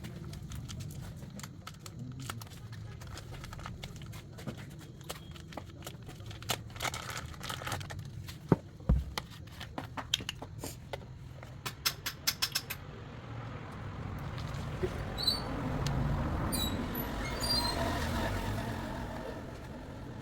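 A run of sharp clicks and knocks, then a low rumble that swells and fades over the last few seconds.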